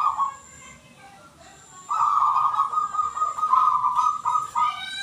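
Zebra dove (perkutut) cooing: a short coo at the start, then a long broken run of cooing notes from about two seconds in until nearly the end.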